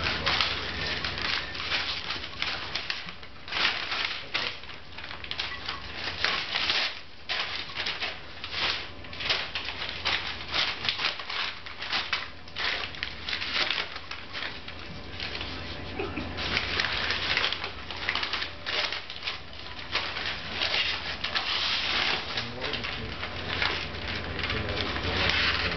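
Paper rustling, crumpling and ripping in quick irregular bursts as a dog grips and tugs it apart, shredding it with its teeth.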